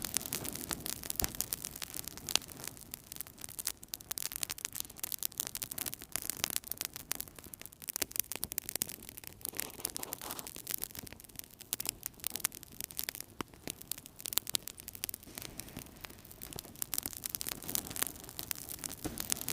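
Wood fire crackling in a fireplace: dense, irregular pops and snaps over a steady soft hiss of the flames.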